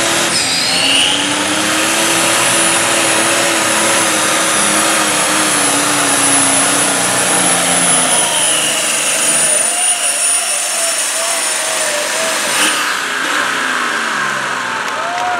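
Turbocharged International pulling tractor's diesel engine running hard under load as it drags the weight-transfer sled, with a high, steady turbo whistle over the engine note. Past the middle the engine's low note drops away as the pull comes to an end.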